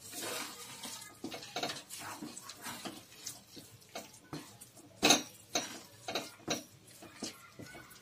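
A spoon scraping and knocking in a nonstick kadhai while thick grated sweet-potato halwa is stirred, a run of short scrapes with a sharp knock about five seconds in and a few more strong knocks just after.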